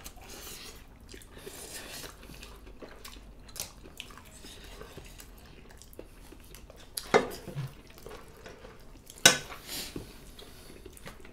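Close-up eating sounds: chewing and mouth sounds as mutton curry and rice are eaten by hand, with light clinks and scrapes of plates and cutlery. A few louder sounds come about seven and nine seconds in.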